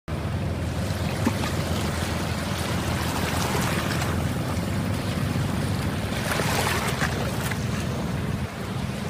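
Sea waves and wind, recorded from a boat on open water, with wind buffeting the microphone.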